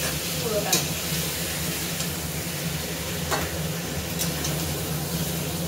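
Katla fish-head pieces sizzling in hot oil in a steel kadai. A metal slotted spoon clinks sharply against the pan and bowl three or four times as the fried pieces are lifted out.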